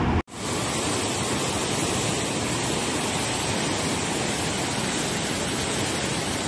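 Steady rushing of a fast, muddy river in flood, after a brief silent gap near the very start.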